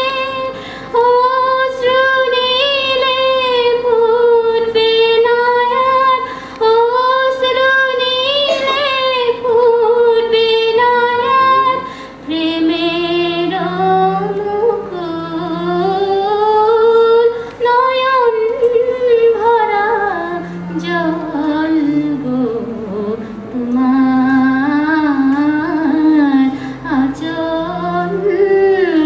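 A woman singing live to harmonium accompaniment, holding long ornamented notes that slide up and down. Lower accompanying notes join about halfway through.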